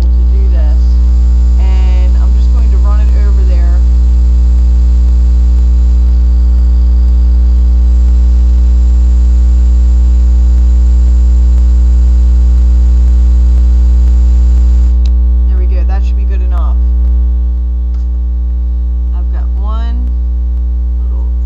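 Loud, steady electrical mains hum with a ladder of overtones, overlaid by a hiss that cuts off suddenly about fifteen seconds in. Faint, short sliding squeaks come and go over it.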